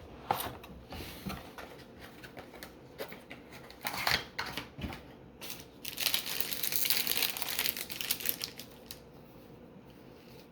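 Hands opening a cardboard mini box and its sealed trading card pack: scattered clicks and rustling, a sharp crackle about four seconds in, then a longer, louder crinkling and tearing of the pack wrapper for about two seconds before it settles to soft handling.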